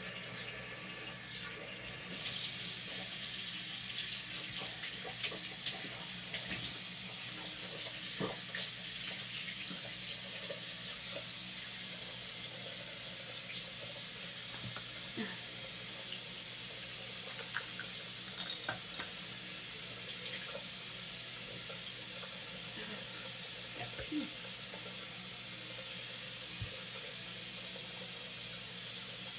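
Bathroom sink faucet running steadily into the basin, growing louder about two seconds in, with a few light clicks.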